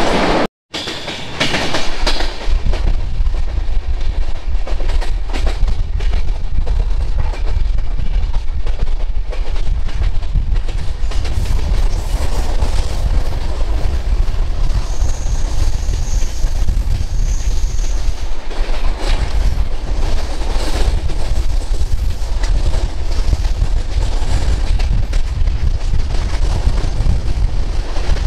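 Indian Railways passenger coach running at speed, heard from its open doorway: a steady rumble and clatter of wheels on rails. A faint high whine comes and goes twice midway. The sound cuts out briefly less than a second in.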